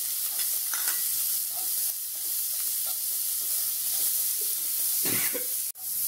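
Chopped onions sizzling steadily in hot oil in a non-stick kadai, stirred with a wooden spatula that scrapes and knocks against the pan. The sound drops out for an instant near the end.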